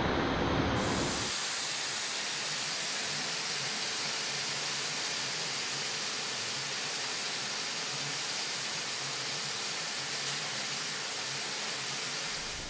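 Steady hiss of high-volume low-pressure (HVLP) paint spray guns spraying paint, starting about a second in.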